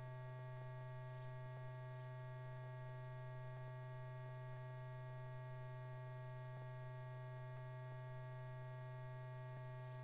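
Steady electrical hum with several fainter steady tones above it and a few faint ticks: the background hum and crackle of an old film soundtrack.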